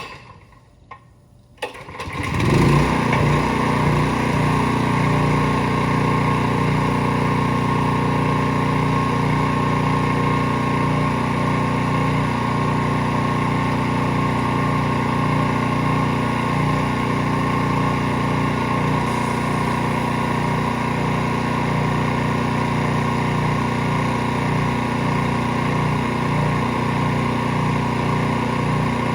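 A few knocks, then a small petrol engine, typical of a gas pressure washer, starts about two seconds in and runs steadily.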